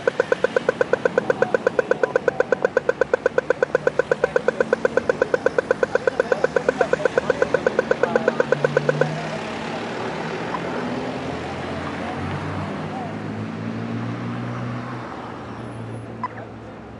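Pedestrian crossing signal beeping rapidly, about six to seven beeps a second: the fast walk-phase signal. It stops about nine seconds in, leaving the street traffic with vehicle engines running.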